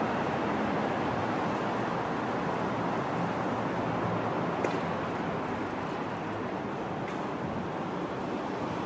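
Steady rumble of a Seibu electric commuter train running away down the line, slowly fading, with two faint ticks partway through.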